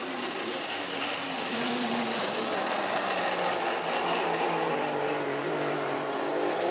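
A Triang or Lima model railway train running past close by: the model diesel locomotive's electric motor makes a steady hum and the coaches' wheels roll on the track, with the motor's pitch sagging a little partway through.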